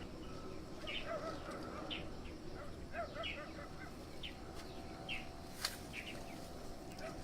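Small birds chirping in short, repeated calls, with one sharp click a little past halfway through.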